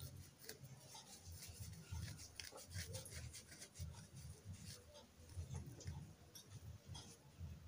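Wooden spatula stirring and scraping a thick sauce in a nonstick wok: faint, irregular scrapes and clicks with soft low knocks.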